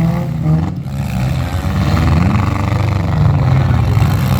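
Demolition derby cars' engines running loud, one revving up about two seconds in.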